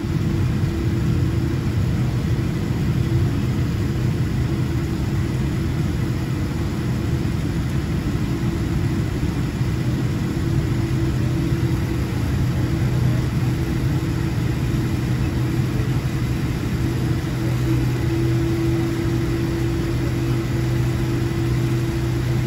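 Cabin noise of a Boeing 787-10 taxiing after landing: a steady drone from the engines at taxi power, with a low hum and a higher steady tone that grows stronger near the end.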